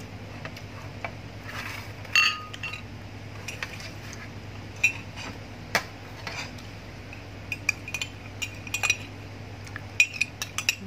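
Metal spoon clinking and scraping against a plate and a glass mug: scattered light clicks, with one louder ringing clink about two seconds in.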